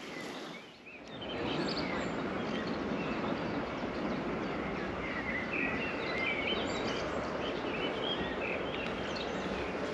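Steady outdoor background noise with small birds chirping, the chirps thickest from about five seconds in.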